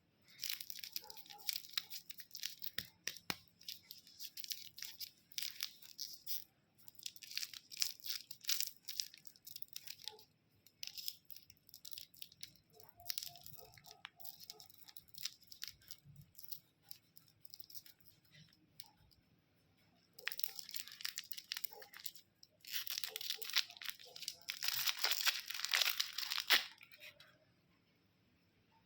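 Candy wrappers being torn open and crinkled: dense crackling in several spells a few seconds long, the loudest about two-thirds of the way through, then quiet near the end.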